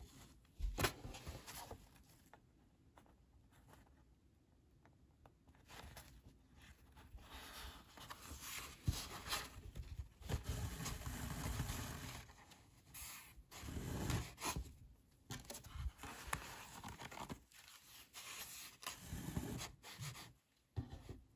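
Irregular scraping and rustling of thick cotton printmaking paper and waxed linen thread as a hand-sewn sketchbook block is handled and its kettle stitches are tugged tight, with a sharp tap about a second in.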